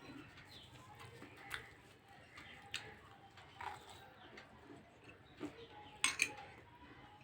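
Someone eating a meal from a plate: scattered light clinks and taps, the loudest pair about six seconds in.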